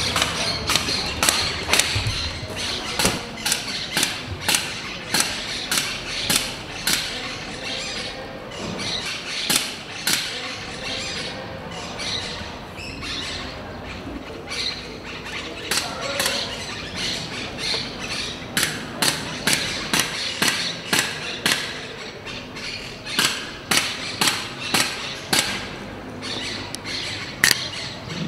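Sharp clicks or knocks repeating about twice a second, over a steady noisy background.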